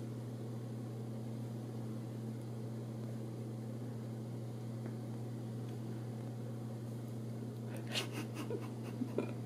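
Quiet room tone with a steady low hum, and a few faint light clicks or rustles near the end.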